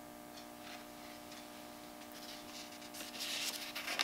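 Quiet room with a faint, steady hum of a few held tones, and soft rustling that builds over the last couple of seconds.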